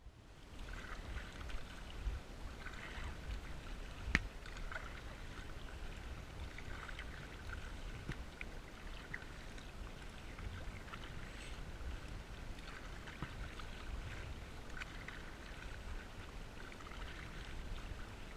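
Wind rumbling on the microphone and water moving against a small boat as it crosses a lagoon, with a sharp click about four seconds in.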